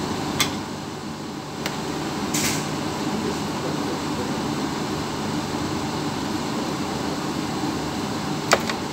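Steady hum of a ship's running machinery and ventilation, with a few sharp clicks and a brief clatter of kitchen things being handled; the sharpest click comes near the end.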